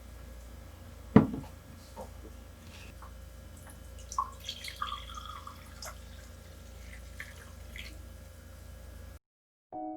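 Water dripping with light clinks and clicks over a low steady hum, and one sharp knock about a second in. The sound cuts off near the end, and piano music begins.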